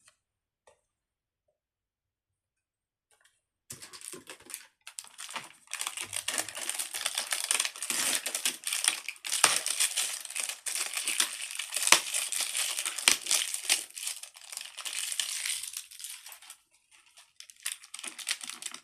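Paper packaging crinkling and crackling as it is handled and unwrapped by hand. It starts after a few seconds of quiet, runs as a dense run of sharp crackles, pauses briefly and starts again near the end.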